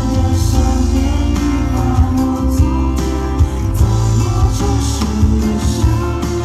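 Live pop band performance: singing over guitar, with a heavy bass and a steady beat.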